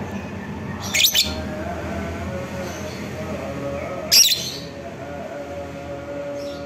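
Fischer's lovebird giving two short, high-pitched calls, about a second in and again about three seconds later, over steady background noise.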